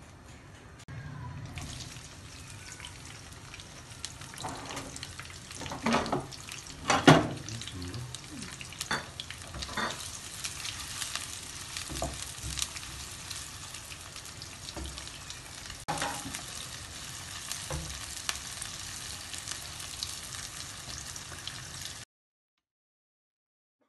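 Sliced onions sizzling as they fry in hot oil in a non-stick pan, stirred with a wooden spoon that scrapes and knocks against the pan. A few loud knocks come about six and seven seconds in.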